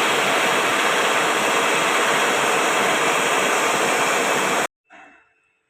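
A loud, steady hiss of rushing noise with no pitch or rhythm, which starts abruptly and cuts off suddenly after about four and a half seconds.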